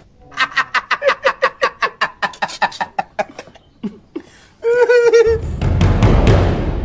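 A person laughing in quick, evenly spaced 'ha-ha-ha' pulses, about seven a second, for some three seconds. A short, held vocal cry follows, and then a loud, even rushing noise with a low rumble.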